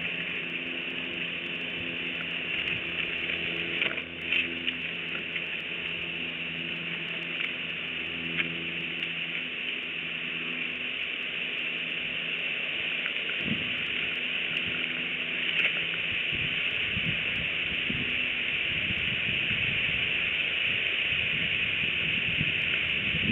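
Outdoor ambience at a bald eagle nest: a steady high hiss with a low droning hum that fades out about halfway through, after which wind buffets the microphone. A few faint snaps and rustles as the eagles shift sticks in the nest.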